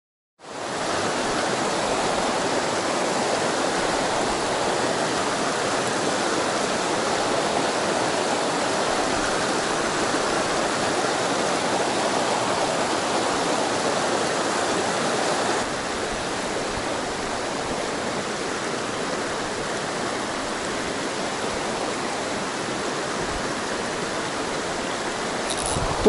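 Mountain stream rapids running over boulders: a steady, even rush of water that starts suddenly about half a second in and drops a little in level about 15 s in. Right at the end a man's brief exclamation begins.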